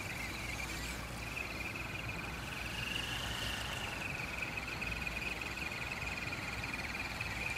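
A steady, high-pitched, finely pulsing insect chorus, rising slightly in pitch about three seconds in, over a low rumble.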